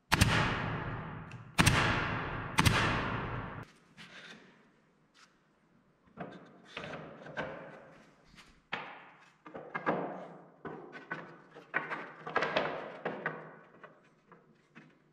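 Wooden boards being set into a steel cart frame and knocked into place: three loud thuds with a long echo in the first few seconds, then a run of lighter wooden knocks and taps.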